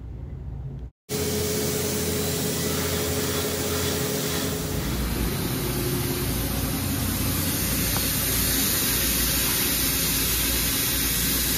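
Running machine-shop machinery: a steady, loud hiss with a low hum beneath it. The sound drops out briefly about a second in, then carries on evenly.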